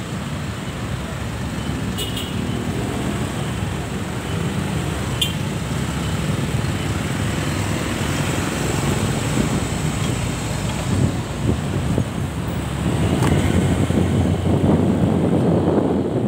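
City road traffic, with a steady rumble of engines and tyres heard from a moving vehicle. The rumble grows louder and rougher over the last few seconds as speed picks up.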